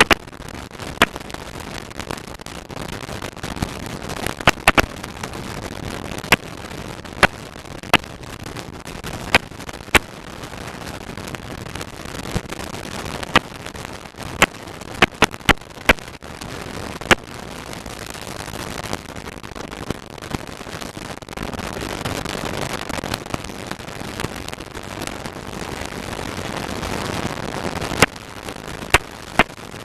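Steady rush of engine and slipstream noise in the open cockpit of a Tiger Moth biplane in flight. Irregular sharp cracks come every second or two, and the rush grows louder in the second half.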